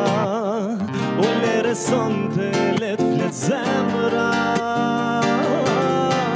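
A man singing with wide, wavering vibrato over acoustic guitar accompaniment, in a live studio band performance.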